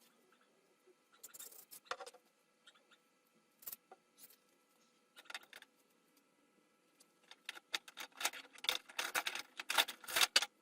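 Scattered short clicks, scrapes and rustles of hands and tools working on a wooden chair. They come in a few separate bursts and grow busiest over the last three seconds.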